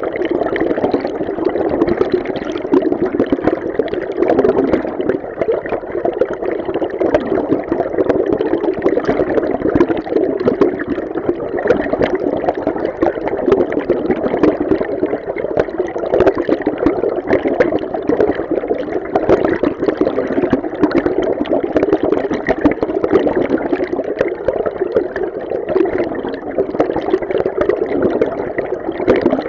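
Flowing river water recorded underwater: a steady, muffled rush of moving water with constant small fluctuations.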